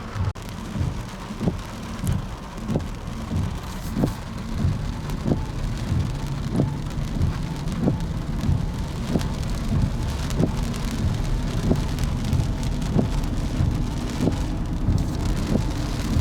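Footsteps at a steady walking pace, about one and a half steps a second, over a constant low rumble of wind on the microphone.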